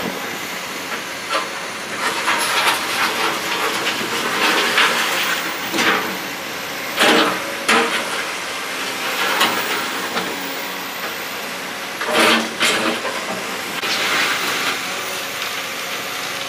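Excavator working: a steady rushing hiss with repeated clanks and rattles, the heaviest knocks coming in pairs about 7 and 12 seconds in.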